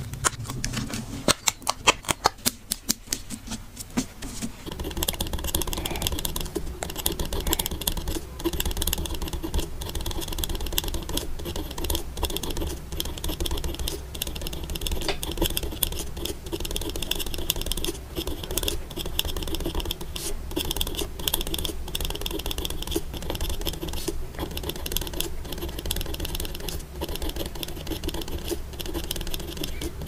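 Pen writing on a journal page: a steady, scratchy sound of short strokes from about five seconds in. Before that comes a quick run of sharp clicks and taps as stickers are handled with tweezers.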